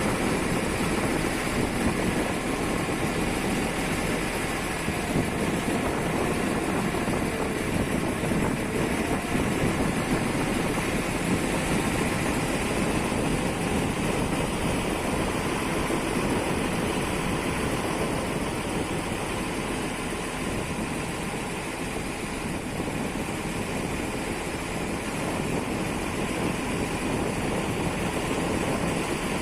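Ferry boat's engine running steadily.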